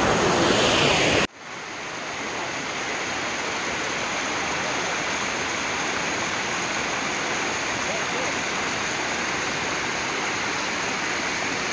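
Steady rush of water from a waterfall spilling in a thin sheet down a sloping rock face and running over rocks. The sound breaks off sharply about a second in and comes back a little quieter, then holds steady.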